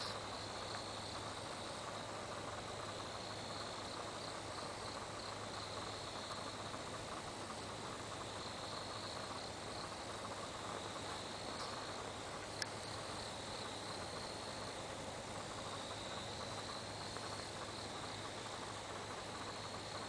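Crickets chirring on an autumn night, a steady high trill that swells and eases in stretches of a few seconds over a faint hiss. One sharp click a little after halfway.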